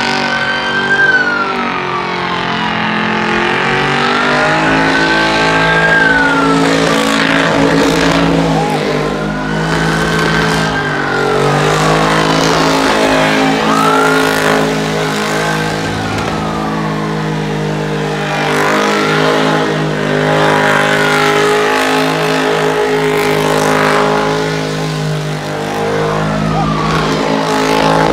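Car engine revving hard during a tyre-smoking burnout, its pitch climbing and falling again every few seconds over a steady hiss of spinning tyres.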